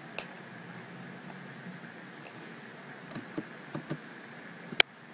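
A few scattered clicks from a computer mouse and keyboard during code editing, over a steady faint hiss and hum. There is one faint click just after the start, a cluster of small clicks in the second half and one sharp click near the end.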